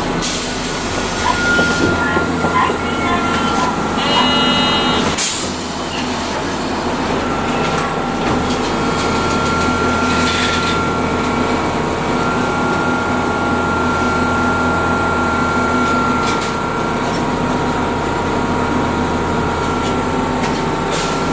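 Inside a Hiroshima Electric Railway 800-series streetcar, the tram running with a steady whine over rumbling wheel and rail noise, very noisy throughout. A short high-pitched tone comes about four seconds in, then a sharp knock.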